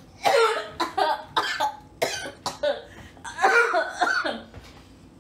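A woman coughing in a fit of short, loud coughs over about four seconds, brought on by the fumes of the aerosol heavy-duty oven cleaner she has just sprayed.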